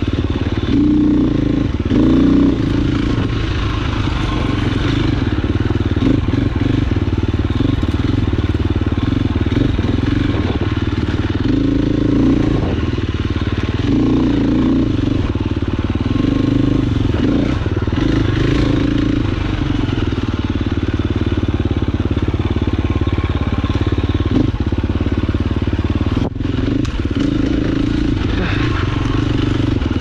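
KTM 350 XC-F single-cylinder four-stroke dirt bike engine running under load on trail, its note rising and falling as the throttle is opened and closed, with a brief drop in loudness about 26 seconds in.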